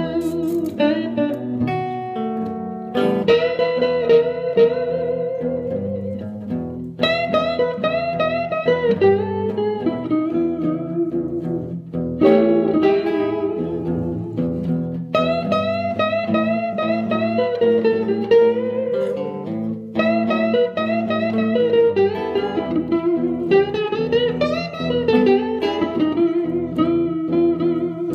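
Two electric guitars playing blues together: a semi-hollow lead guitar through a tweed Vibrolux 5F11 clone amp, whose bent notes glide up and down in pitch to mimic a slide guitar without a bottleneck, over an archtop electric guitar's accompaniment.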